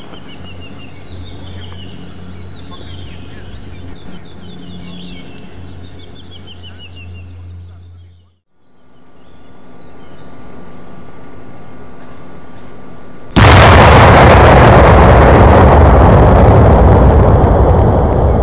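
A 1 kg TNT demolition charge laid on an old artillery shell goes off about thirteen seconds in: a sudden loud blast, then a long rumble that slowly fades. The shell's own filling, which was not TNT, did not detonate. Before the blast, birds chirp over a steady low hum.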